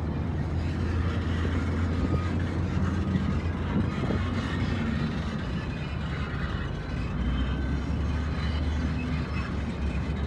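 Steady low drone of heavy diesel engines: dump trucks running close by while an excavator and a wheel loader work, with a brief dip in the engine note a little past the middle.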